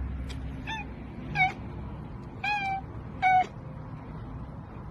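A domestic cat meowing four times in short, high calls within about three seconds, the third the longest.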